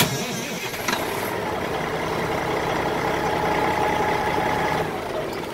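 Caterpillar 3406C 14.6-litre diesel of a fire engine being started off a lithium jump starter: a sharp clunk as the starter engages, then the engine catches and runs steadily for a few seconds before it starts to die away near the end.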